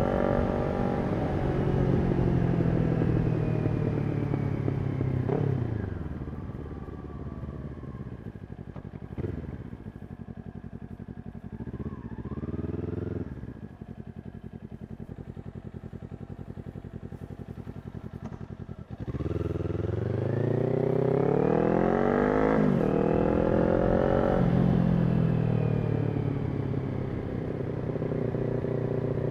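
Kawasaki Ninja 400's parallel-twin engine through a Yoshimura exhaust. It pulls under power at first, then the revs fall away into a long low stretch near idle with a couple of short throttle blips. Near the last third it accelerates hard, the revs climbing, dropping at a gear change and climbing again before settling.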